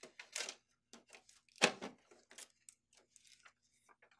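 A sheet of packing paper rustling and scraping as it is pulled out of a laser printer's cartridge area, in short, irregular rustles with the loudest a little under two seconds in.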